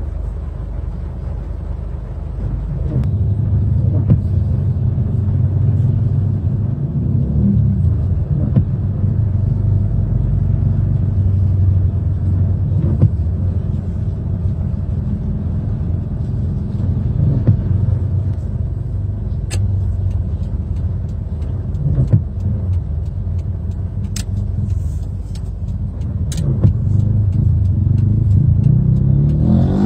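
Car engine and road rumble heard from inside the cabin while driving, a steady low drone that gets louder about three seconds in, with a few faint clicks.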